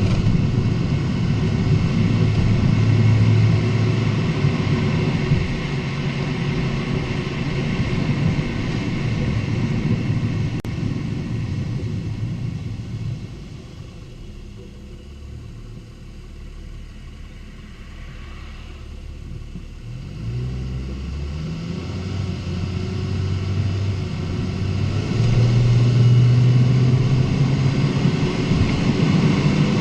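Lexus IS250's 2.5-litre V6 and road noise while driving, a steady low drone. It fades quieter about a third of the way in as the car eases off, then builds back up over the last several seconds.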